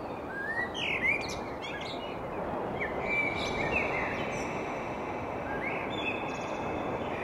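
Birds chirping outdoors over a steady background hiss: short rising chirps at first, then longer held whistling notes.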